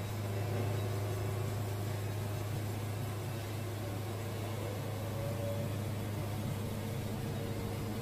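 Wood-Mizer LT70 band sawmill running with a steady drone as its head travels and the band blade cuts into a white oak log.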